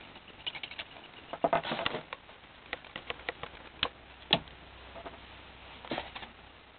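Scattered light clicks and taps from handling an 1851 Navy-pattern .44 cap-and-ball revolver while loading its chambers, with one sharper click about four seconds in.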